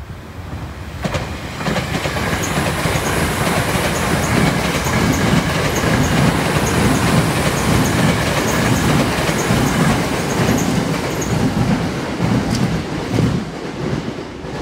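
Electric commuter train passing close by, its wheels clacking in a steady rhythm over the rail joints. It swells about a second in and fades near the end as the train moves off.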